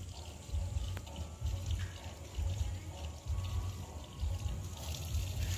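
Water poured from a small hand-held vessel, running and splashing, with wind rumbling on and off against the microphone.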